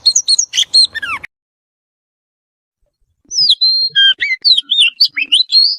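Oriental magpie-robin singing: clear whistled phrases with sliding, changing notes, a short burst, then after a pause of about two seconds a longer run of varied phrases.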